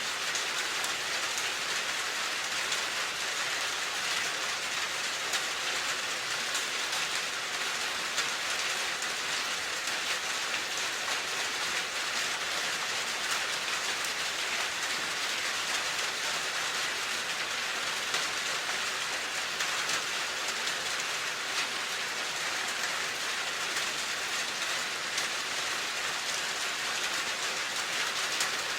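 Steady rain falling, an even hiss with fine patter of drops.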